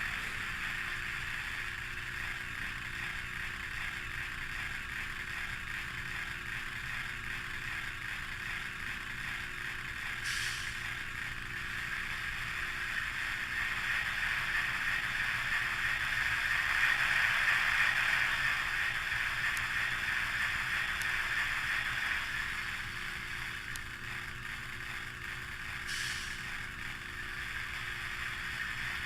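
Model NMBS diesel locomotive running: a steady mechanical whirr and rattle over a low hum, growing louder toward the middle. Two short high ticks come about ten seconds in and again near the end.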